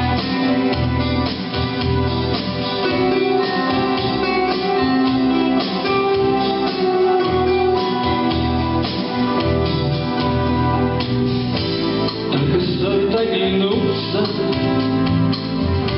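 Instrumental interlude of a song: steady backing music with a bass line, a beat and sustained melody tones.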